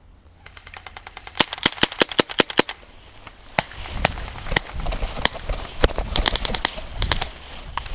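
Airsoft guns firing BBs: a fast string of sharp shots about a second and a half in, then scattered single shots and short bursts.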